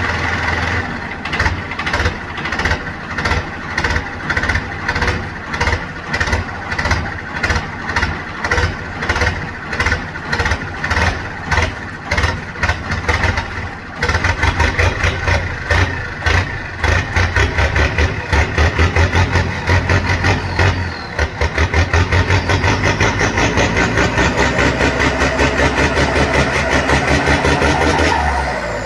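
Bass-heavy electronic dance music played loud through a sound system, a steady kick-drum beat that turns faster and denser about halfway through, with a rising sweep building near the end.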